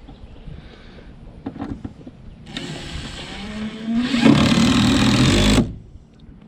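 A power tool runs for about three seconds. It gets louder about halfway through, with a slight rising whine, then stops abruptly.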